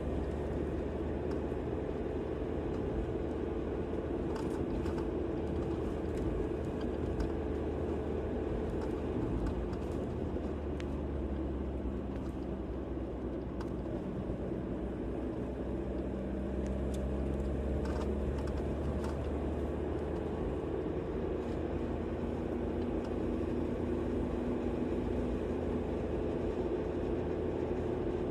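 A road vehicle's engine and road noise: a steady low drone whose engine pitch slowly drifts up and down.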